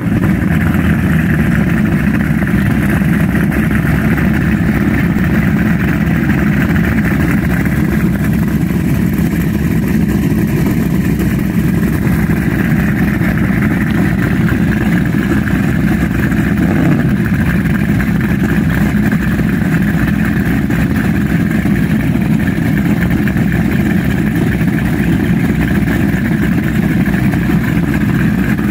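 Triple supercharged engines of a 43-foot Scarab powerboat idling steadily during a warm-up, their exhaust discharging through the water at the transom.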